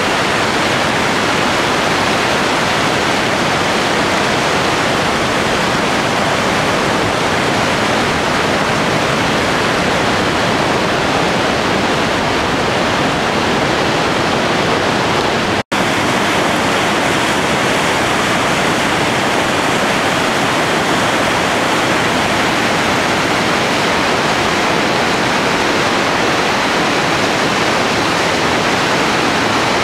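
Merced River rapids rushing: a loud, steady wash of white water with no let-up. It is broken once, about halfway through, by a split-second gap of silence.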